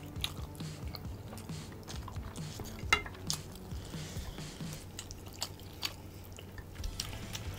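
Gloved fingers picking through sauce-covered rib meat in a ceramic dish, with chewing and scattered small clicks against the dish; one sharper click about three seconds in.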